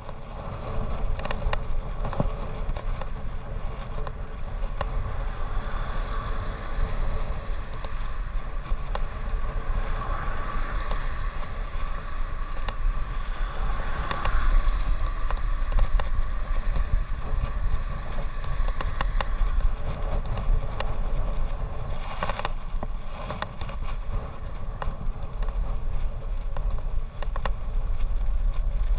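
Wind buffeting the microphone of a camera riding on a moving bicycle, with a steady low rumble and road noise. A motor vehicle passes close by about halfway through, making the noise swell.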